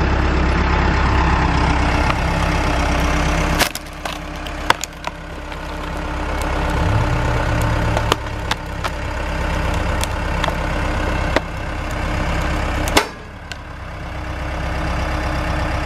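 Engine of a heavy machine working to pull out a tree stump, running steadily with its pitch and loudness shifting as the load changes. Several sharp clanks and knocks, and the engine note drops suddenly twice, a few seconds in and near the end, before building back up.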